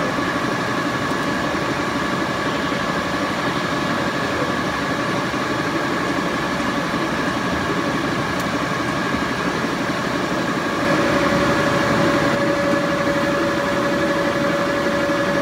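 76-inch Bullard vertical turret lathe running with its table spinning: a steady mechanical hum with a high whine in it. About eleven seconds in it grows a little louder and a lower steady whine joins.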